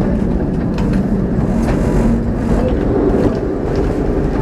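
Lisbon street tram heard from on board, running slowly along its rails: a steady low rumble of wheels and running gear, with scattered light clicks and rattles.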